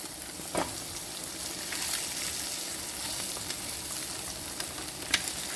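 Eggs frying in butter in a pan, with a steady sizzle as they are flipped. A short knock comes about half a second in and a sharper click near the end.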